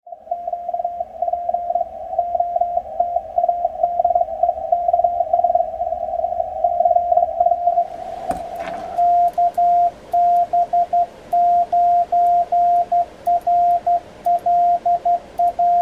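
Morse code heard as a single keyed tone. First comes a fast CW signal received on a ham radio transceiver, with some band hiss. From about nine seconds in, a crisp sidetone is keyed in separate dits and dahs from a pair of 3D-printed iambic paddles, with faint clicks alongside.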